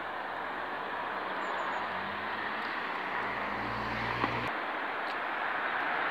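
Steady road traffic noise that grows slightly louder, with a low engine hum joining about two seconds in and cutting off suddenly about four and a half seconds in.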